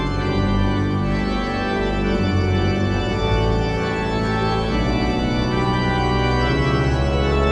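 Pipe organ playing a voluntary: held chords over deep pedal notes, with the bass changing every second or two. A strong low note comes in near the end.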